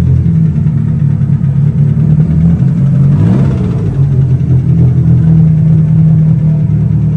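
Car engine running steadily, with a brief rise and fall in pitch a little over three seconds in.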